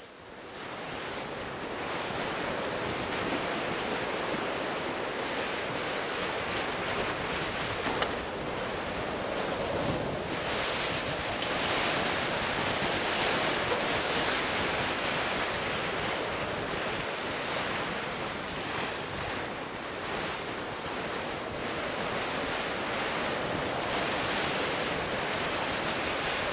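Strong wind buffeting the microphone over the rush and splash of rough water along the hull of a Pogo 2 Mini 6.50 sailing hard upwind in about 15–16 m/s of wind. It is a steady, noisy rush that swells and eases a little with the gusts and waves.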